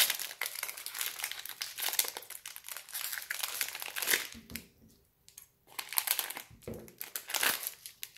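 Foil wrapper of a Bowman Draft Super Jumbo trading-card pack crinkling and tearing as it is worked open. It pauses briefly about halfway and there are a couple of dull bumps. The pack is stubborn and slow to open.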